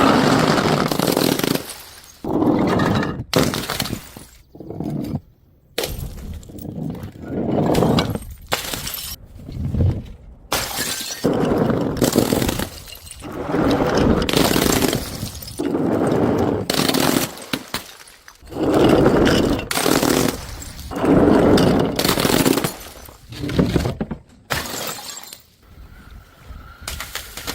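Glass bottles thrown onto stairs and smashing one after another, roughly every one to two seconds. Each break is a sudden crash that trails off over about a second.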